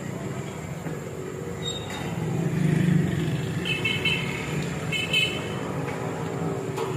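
Street background noise: a steady low rumble of traffic that swells about two to three seconds in, with two short high-pitched tones near the middle.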